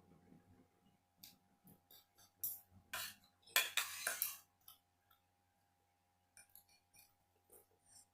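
Cutlery clicking and clinking against dishes while eating, with a cluster of louder clinks about three to four seconds in and a few light clicks near the end.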